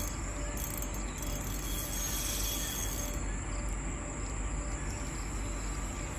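Steady outdoor ambience: insects chirring in a thin, high, unbroken tone over a low steady rumble.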